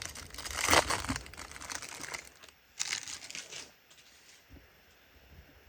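Crinkly wrapper of a baseball trading card pack being crumpled and torn open, with a long spell of crinkling at first and a shorter burst about three seconds in.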